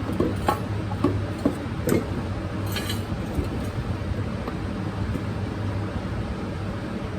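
Metal tools clinking and knocking against the mower's blade and deck: a run of light knocks in the first two seconds and a short rasp near three seconds, over a steady low hum.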